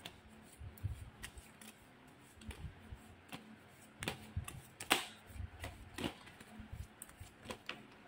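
Deck of tarot cards being shuffled and handled by hand: faint, irregular soft clicks and taps of cards, a few louder ones near the middle.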